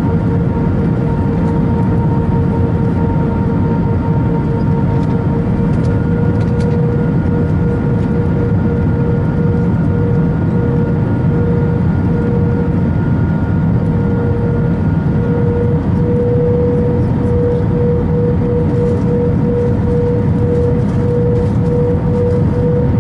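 Cabin noise of an Airbus A321 on final approach: a steady roar of airflow and jet engines with a constant engine hum that wavers and rises slightly in pitch about two-thirds of the way through.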